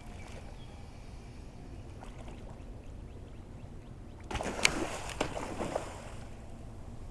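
Steady low rumble of wind and water, then about four seconds in a second and a half of splashing at the water surface.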